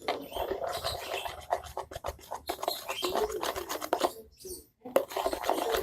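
Soft, wet slime being squeezed and kneaded by hand, with squelching, crackling and squeaky popping. The slime has turned runny.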